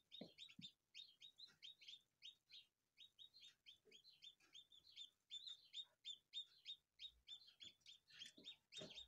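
Newly hatched domestic chicks peeping in an incubator: a continuous run of faint, high, short downward-sliding peeps, about two to three a second.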